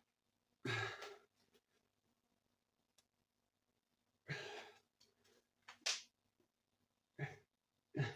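A person's breath: about five short, breathy exhales or sighs, spaced a second or more apart.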